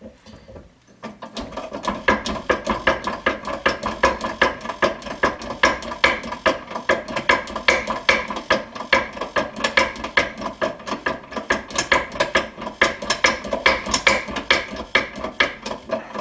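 Hand pump of a 10-ton hydraulic shop press worked in quick strokes to bring the ram down for pressing a wheel stud into a truck hub: a rapid, steady run of metallic clicking and rattling, about three or four clicks a second. It starts about a second in.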